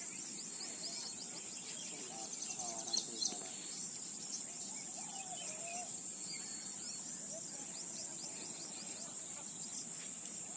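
Steady high-pitched drone of insects such as crickets, with scattered short bird chirps over it.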